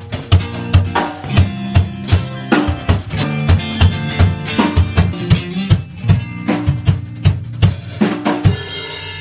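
Live band playing in a rehearsal room: a drum kit keeps a steady beat of kick and snare hits over sustained bass and guitar tones.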